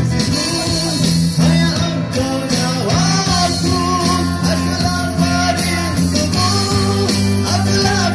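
Live amplified street band playing a song: singing over electric guitar and keyboard, with steady low backing notes.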